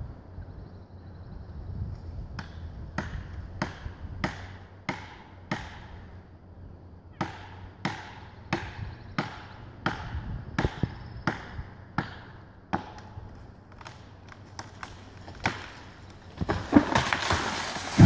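Axe chopping into the trunk of a dead standing snag: a steady run of sharp chops about every 0.6 s, with a short pause partway through. A louder rushing crash comes near the end.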